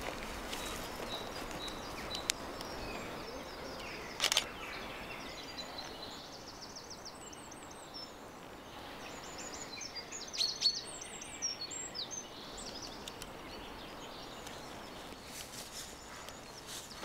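Quiet woodland ambience with small birds chirping in quick high twittering runs through the middle, and a few sharp clicks, the loudest about four seconds in.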